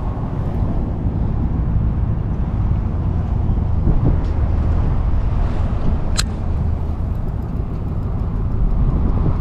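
Steady low rumbling outdoor noise, with one sharp click about six seconds in.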